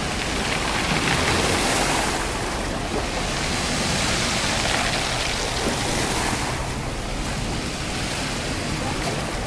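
Mediterranean waves washing over a pebble beach. As each wave draws back, the stones roll and knock against each other in a hissing rattle, a little roar, which swells twice.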